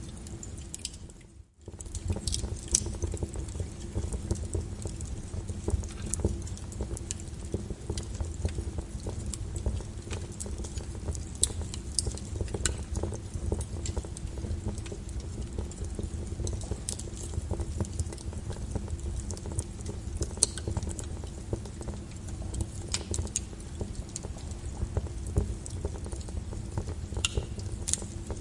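Steady brown noise, a low and even rumble, with fireplace crackles laid over it: scattered sharp pops and snaps at irregular intervals. The sound drops out briefly about a second in, then resumes.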